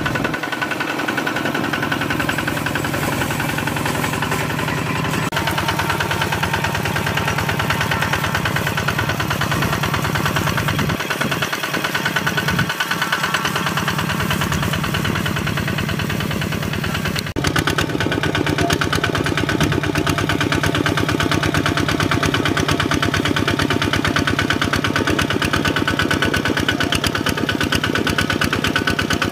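Kubota walking tractor's single-cylinder diesel engine running steadily under load while pulling a disc plough through dry soil. The sound shifts abruptly about seventeen seconds in.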